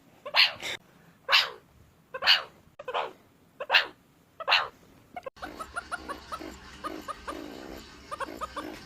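Meerkat giving a series of sharp, bark-like calls about one every second. About five seconds in, this cuts to a busier stretch of many short, quick meerkat chirps over a steady background hum.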